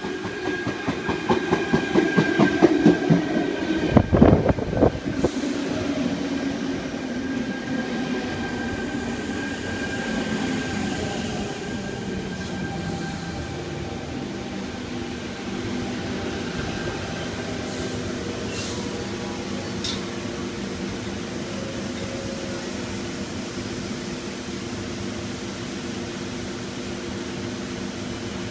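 Sydney Trains double-deck electric train (sets C5 and C10) arriving at the platform. For the first few seconds its wheels clack rapidly over the rail joints, with a heavy thump about four seconds in. It then runs more quietly as it slows and stands at the platform with a steady hum.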